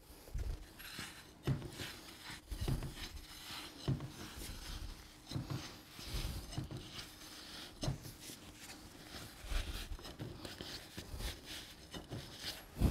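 Irregular dull knocks and rubbing as a replacement integral door sweep is pressed and levered into the slot along the bottom of an exterior door.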